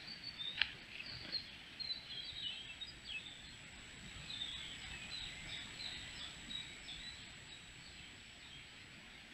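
Small woodland birds chirping and singing in short high phrases over a faint forest background, fading out over the last couple of seconds. A single sharp tick stands out about half a second in, and a faint steady high whine sits underneath.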